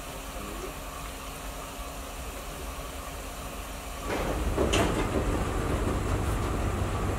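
Diesel locomotive of a ballast train running at a standstill, a steady low rumble. About four seconds in the rumble becomes louder, and a brief hiss follows about a second later.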